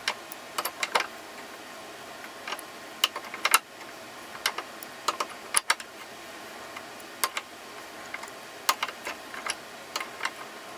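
Irregular sharp metallic clicks and taps of steel plier parts and hand tools being handled while the Utica No. 531 parrot head pliers are taken apart, over a steady faint hiss.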